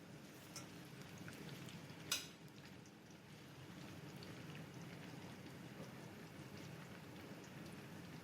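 Bitter gourd slices frying in ghee in a pan: a faint, steady sizzle with light crackling, and one sharp tap about two seconds in.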